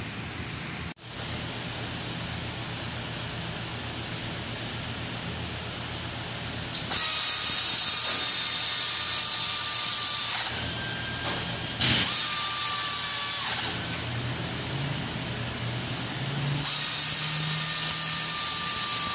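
Handheld power tool run in three bursts of two to three seconds each, a loud hissing whine, on the underside of a car. A steady low hum runs under the first part.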